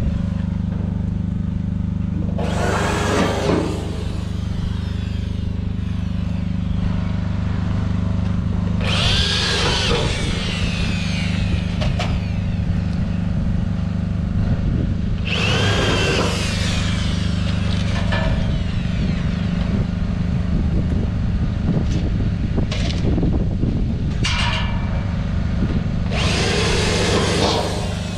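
Power drill driving screws into the house's frame in about five bursts of a few seconds each, each whirring up and winding back down in pitch. A generator hums steadily underneath.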